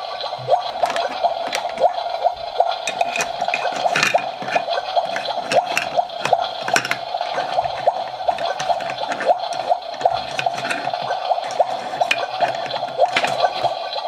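Toy kitchen stove playing a bubbling, boiling-pot sound: a steady stream of small bubble pops. Now and then a plastic spoon and toy vegetables click against the plastic pot.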